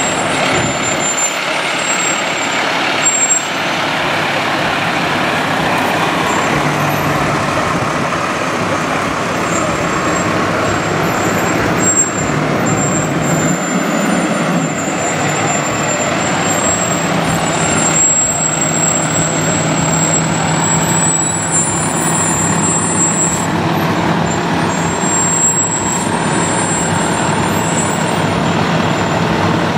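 Diesel engines of fire trucks running as the ladder trucks roll slowly past, a steady loud drone with a low engine hum.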